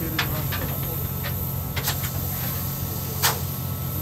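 Steady low mechanical hum from a stationary train, with a handful of short sharp clicks and knocks over it; the loudest comes near the end.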